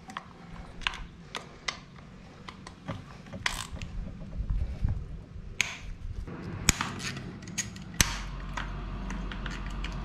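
Hand ratchet with an 8 mm socket clicking in irregular runs as bolts are loosened, with a few sharper metal clinks of the tool. A low steady hum comes in about eight seconds in.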